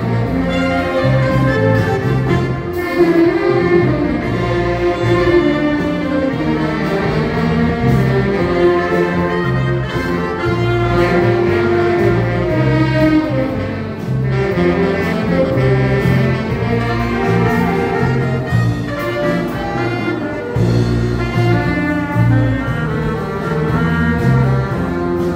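Instrumental band music: sustained melody lines over a steady, regularly pulsing bass.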